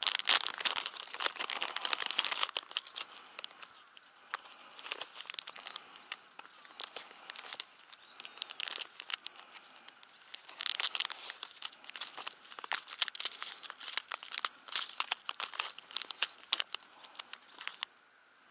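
Plastic fishing-tackle package crinkling as it is opened and handled, with irregular crackles throughout. It is loudest at the start and again about ten seconds in, and stops abruptly shortly before the end.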